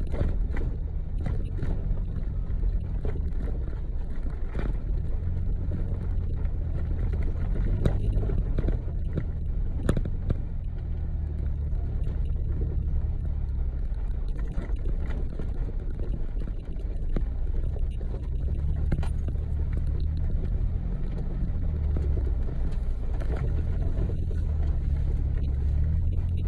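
A 4x4 driving on a dirt trail: a steady low rumble of engine and tyres, with scattered knocks and rattles.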